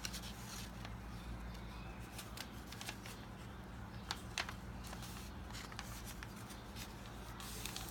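A sheet of paper being folded and creased by hand: scattered short rustles and crinkles.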